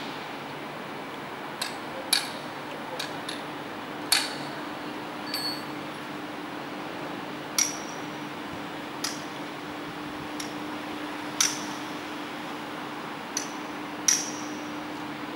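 Hand hammer striking metal in sharp, ringing taps, about a dozen at uneven intervals of one to two seconds, over a steady low hum.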